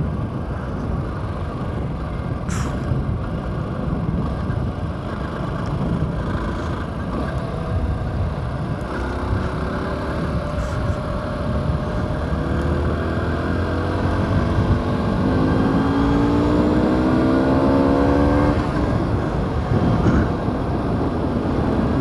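Aprilia SX125 supermoto's 125 cc single-cylinder four-stroke engine running under way, with heavy wind rush on the microphone. From about halfway the engine note climbs steadily as the bike accelerates, then breaks off about three seconds before the end.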